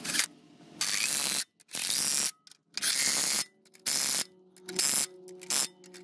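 Cordless impact driver running bolts into an engine adapter plate, in about six short bursts of hammering with brief pauses between them; the later bursts are shorter.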